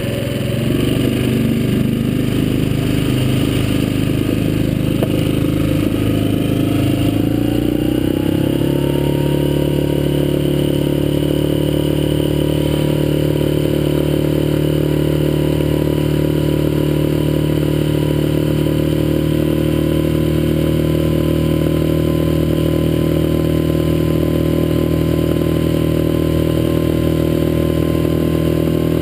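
Small outboard motor pushing an inflatable dinghy. It speeds up about seven seconds in, with the pitch rising, then runs steadily at cruising speed.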